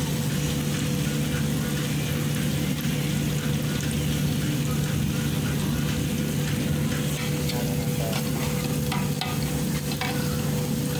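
Chopped onions sizzling steadily as they sauté in plenty of hot oil in an aluminium pot, stirred round with a spatula that clicks and scrapes against the pot now and then, mostly in the second half. A steady low hum runs underneath.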